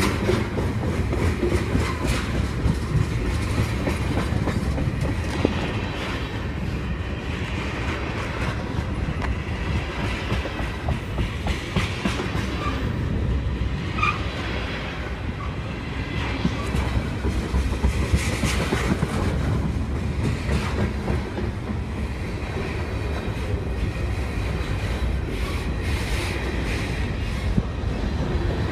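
BNSF train cars rolling steadily past, their wheels clacking over rail joints, with a few brief high wheel squeaks about halfway through.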